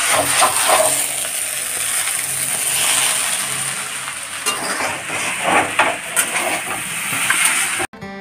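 Chow mein noodles sizzling in a hot wok on a gas stove while a spatula stirs and tosses them, with scattered scrapes and knocks of the spatula against the pan. Just before the end it cuts to strummed guitar music.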